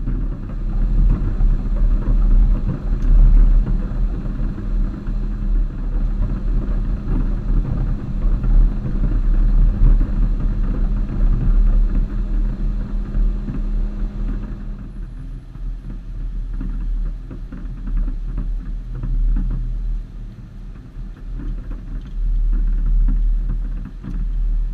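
Off-road vehicle driving along a rough dirt trail, with engine and tyre noise under a heavy low rumble. About fifteen seconds in, a steady hum drops away and the sound gets quieter as the vehicle eases off.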